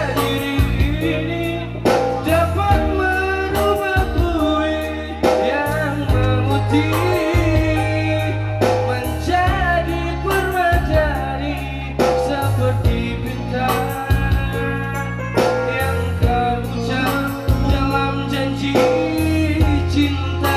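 A song with a singer over a stepping bass line and drums.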